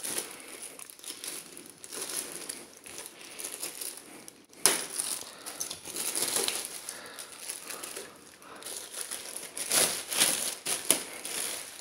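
Plastic packaging cover crinkling and rustling as it is opened and pulled off a voltage stabilizer, in irregular bursts, with louder rustles about four and a half seconds in and again near ten seconds.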